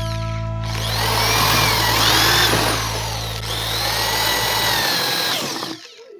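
A power tool running in two spells, its motor whine rising and falling each time, over background music; it stops shortly before the end.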